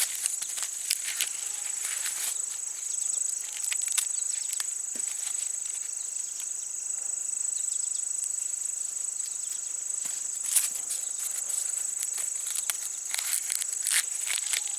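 Steady, high-pitched chorus of insects, with scattered crackling rustles of dry corn husks and leaves being handled and pulled open.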